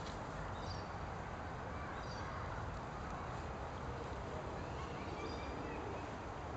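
Steady outdoor background noise with faint, brief high-pitched chirps now and then.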